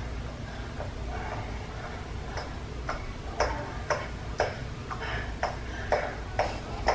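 Rhythmic slapping by hand, about two slaps a second, starting a couple of seconds in over a low steady room hum. The slapping fakes the sound of masturbation.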